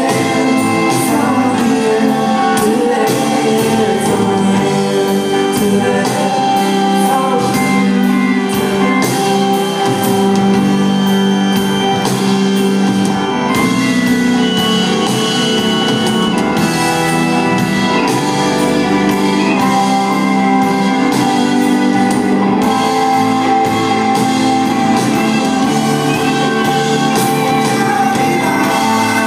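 Rock band playing live on electric guitars, bass and drums, with singing. The music is loud and steady, with no break.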